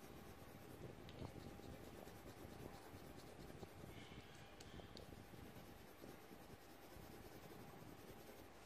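Near silence: faint room noise with a few soft clicks.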